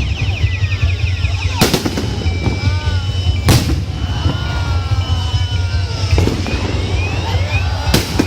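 Fireworks display: three sharp bangs of bursting shells, about 1.7, 3.5 and 8 seconds in, with whistling fireworks between them, tones warbling in the first two seconds, then falling and rising glides, over a steady low rumble.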